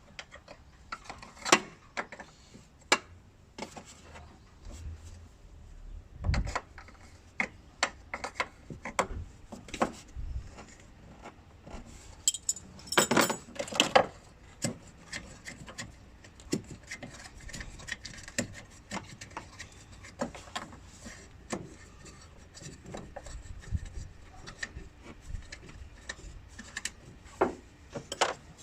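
Hand tools clinking and knocking on metal as the bolts of the brake fluid reservoir bracket are undone. Scattered, irregular clicks, with a quick run of clicks about halfway through.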